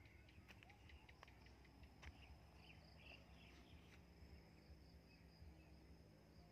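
Near silence with faint, steady insect trilling, typical of crickets in a field, and a few soft chirps and small clicks.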